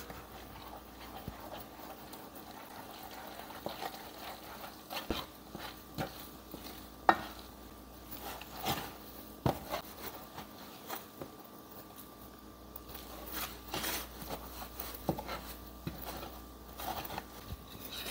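Wooden spoon stirring flour into hot liquid in a stainless steel saucepan as it stiffens into a thick dough, with irregular scrapes and several sharp knocks of the spoon against the pan. A faint steady hum lies underneath.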